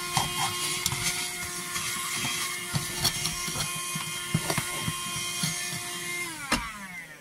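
Vacuum cleaner motor running steadily while its nozzle knocks against the parts inside the fuel tank access hatch, sucking up spilled diesel. Near the end it is switched off and the motor's pitch falls away as it spins down.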